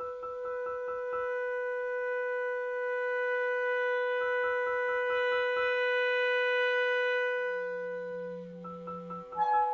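Clarinet and soprano saxophone improvising together. One holds a long, steady note while the other plays two runs of quick, stuttering repeated notes over it, and a brief low note sounds near the end.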